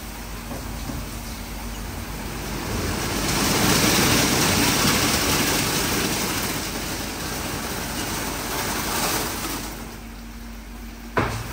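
WashTec SoftCare2 Pro gantry car wash spraying water over a car: a rushing spray that swells to its loudest a few seconds in, then eases off, with one sharp knock near the end.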